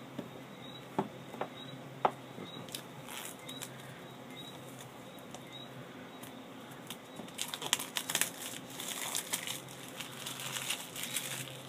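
Hands handling a cardboard iPhone 4S retail box: a few scattered taps and clicks, then from about seven seconds in a longer stretch of crinkling and rubbing against the box.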